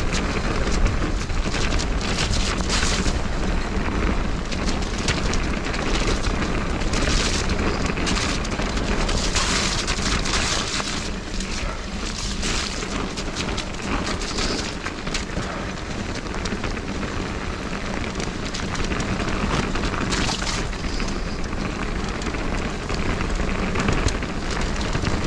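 Mountain bike riding fast down a wet dirt trail: steady wind buffeting on the GoPro's microphone and tyres rolling on the dirt, with constant rattling and clicking from the bike over rough ground and now and then a louder hiss.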